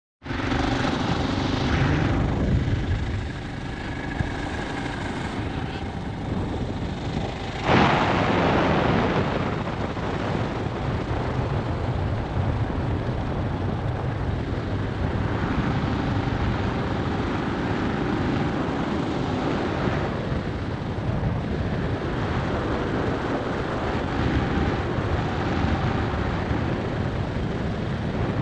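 Motorcycle engine running steadily while riding, mixed with wind rushing over the microphone. About eight seconds in there is a sudden louder rush of noise.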